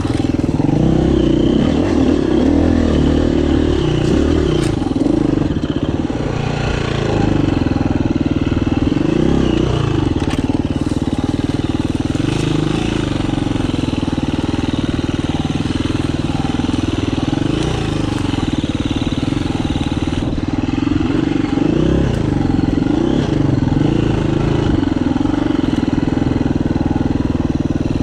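2019 KTM 350 EXC-F dirt bike's single-cylinder four-stroke engine pulling steadily while being ridden, its revs briefly rising and falling every few seconds.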